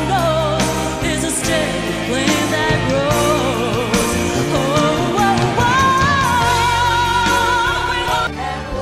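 A woman singing a pop song live into a microphone with band accompaniment: a wavering run of notes, then a long held note with vibrato. The song cuts off abruptly near the end.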